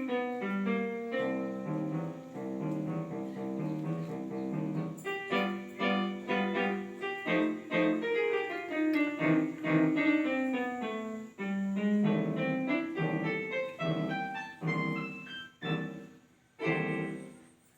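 Piano music: a flowing run of notes over chords, ending on a final chord that rings out and fades away near the end.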